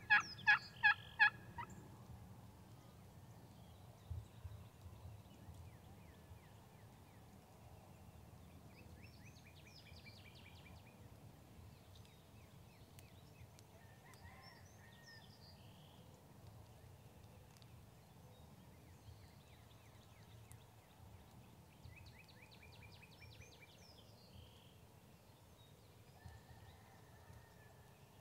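Wild turkey hen yelping close by, a quick run of about five loud yelps in the first second or so. Later, distant gobblers gobble faintly three or four times, and there is a single soft thump about four seconds in.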